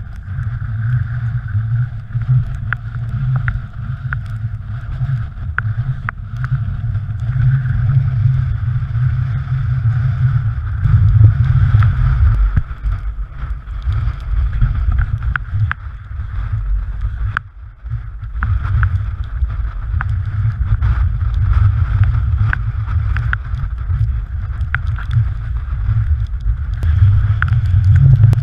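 Strong wind buffeting a GoPro Hero3's microphone: a constant heavy low rumble that briefly drops away about seventeen seconds in, with scattered small clicks and knocks.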